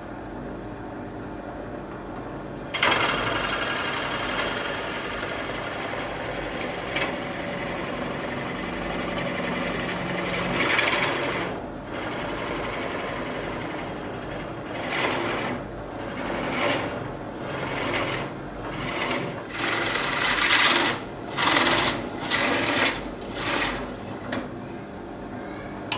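Bench drill press running, its bit starting to cut into layered wood about three seconds in. In the second half the cut comes in short bursts about once a second as the bit is pressed in and eased back out.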